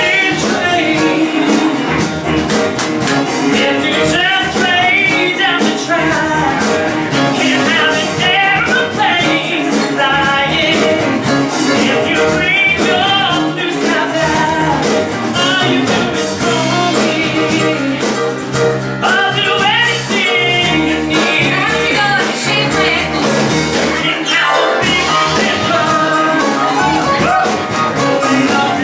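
A rock-style song performed live: singing over instrumental accompaniment.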